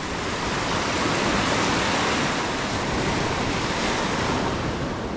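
Surf washing in on a sandy beach: a steady hiss of small breaking waves and foam running up the sand.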